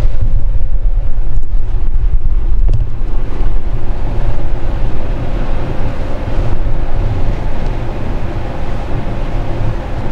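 Domestic cat purring steadily and loudly, picked up at close range as a low rumble while a hand strokes it; it is relaxed and content with being petted.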